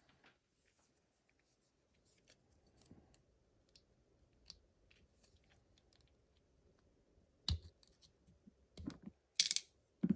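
Small lock parts and hand tools handled on a bench: scattered light clicks and taps, a sharper knock about seven and a half seconds in, and a brief scrape near the end.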